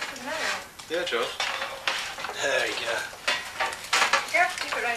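Cutlery and metal baking ware clattering and scraping at a kitchen counter, in irregular knocks with several short, high, sliding tones over them.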